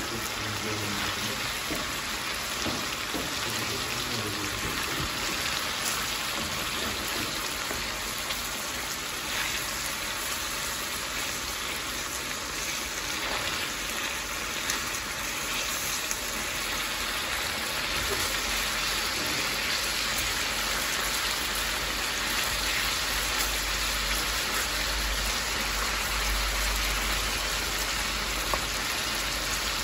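Meat frying in hot oil in a pan: a steady sizzle.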